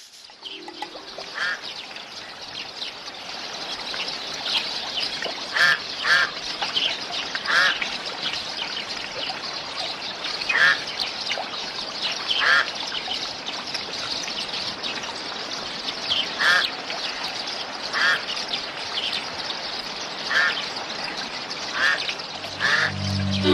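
Birds calling outdoors: short, wavering calls every second or two over a steady high hiss.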